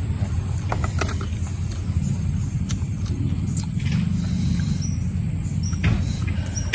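Close-up chewing and crunching of crispy smashed fried chicken with rice, small crackles and clicks over a steady low rumble.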